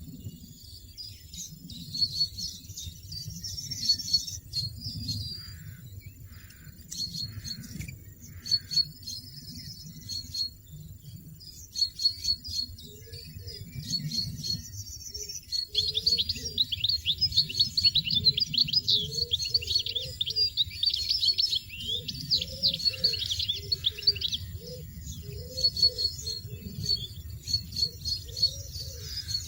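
European goldfinches chirping: short, high calls repeated in the first half, then, about halfway through, a dense, rapid twittering that runs on.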